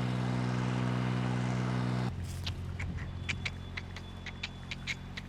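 An engine running steadily at idle, which cuts off abruptly about two seconds in. A quieter stretch follows, with about ten sharp clicks or snaps.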